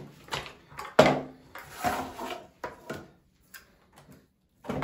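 Chainsaw parts being handled on a table: a run of hard plastic-and-metal knocks and clunks as the guide bar is picked up and brought to the saw body. The loudest knock comes about a second in, followed by a short scrape.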